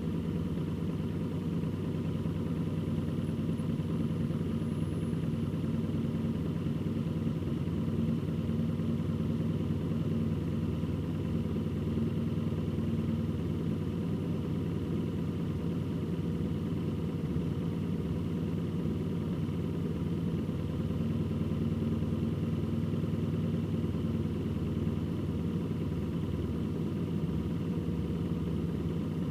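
A vehicle on the road at a steady speed: an even engine drone with road noise, and a slightly higher engine tone that comes and goes twice.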